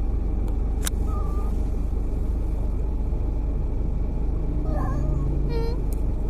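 Steady low road rumble inside a moving car, with a sharp click about a second in and a short meow from the cat in its carrier near the end.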